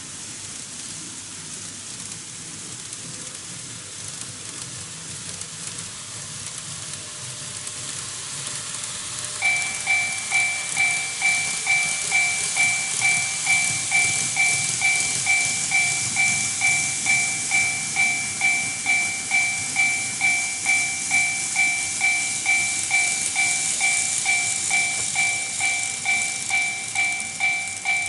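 Steady rushing noise of model trains running on the track, slowly growing louder. About nine seconds in, the TOMIX Automatic Level Crossing II's electronic warning bell starts, ringing about twice a second: the crossing signalling an approaching train.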